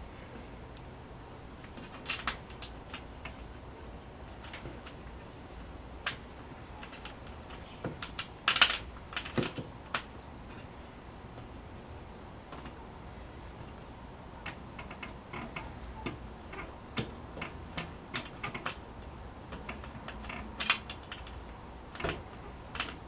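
Scattered light clicks and taps of fingers turning small screws by hand and handling a thin bent plate held against a wall, with the loudest cluster of clicks about eight to ten seconds in.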